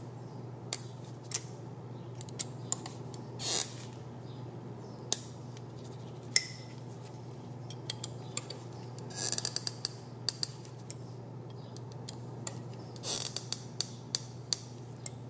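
Hex driver turning small flat-head screws into a carbon-fibre drone frame: scattered sharp clicks and a few short runs of rapid clicking as the screws seat. This is what a screw driven in correctly with a sharp driver should sound like.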